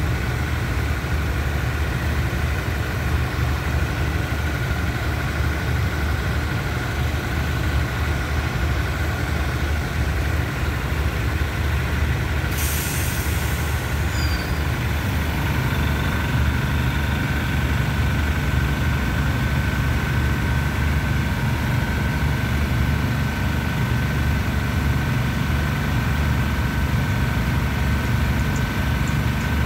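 Diesel multiple-unit train standing at the platform with its engines idling: a steady low rumble with a faint whine above it. About twelve seconds in there is a short hiss.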